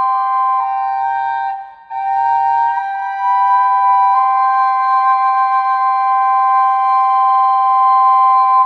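Native American-style double pocket flute: a steady drone tone under a melody that steps downward, breaks for a breath about two seconds in, then rises and settles into a long held final note sounding together with the drone.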